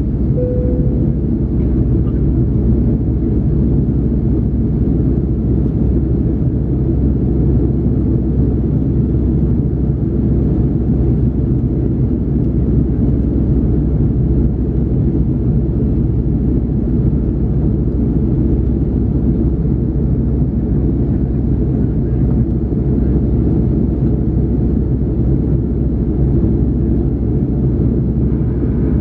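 Steady, low cabin rumble of an Airbus A330-300 in its climb, heard from a window seat: airflow and its two Pratt & Whitney PW4168A turbofan engines. A short tone sounds about half a second in.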